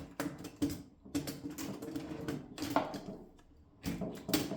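The typebar segment of a Mercedes Model 8 typewriter being fitted back into the machine: a series of metal clicks and knocks with a stretch of rattling in the middle, and a few sharper knocks near the end as it is pressed home.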